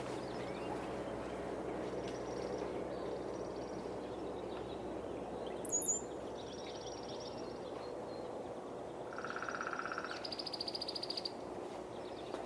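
16-inch Sanyo oscillating table fan running with a steady low hum and air noise. Outdoor animal calls chirp over it in short rapid trills, and there is a brief click about six seconds in.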